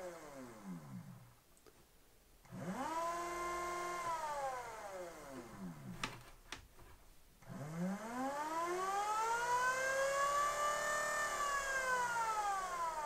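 24-volt electric motor running under speed-controller control, its whine gliding with motor speed: it winds down, spins up and holds, winds down again, then after two sharp clicks spins up slowly to its highest pitch and begins to wind down near the end.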